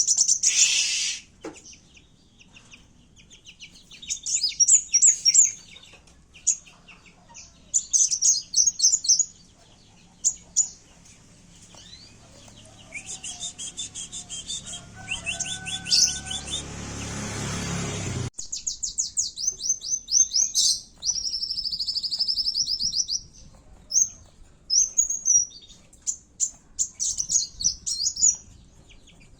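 Kowul sunbirds' high, rapid twittering chirps and trills: the agitated calls of fighting birds, in bursts with short gaps. In the middle a rushing noise swells for several seconds and then cuts off suddenly.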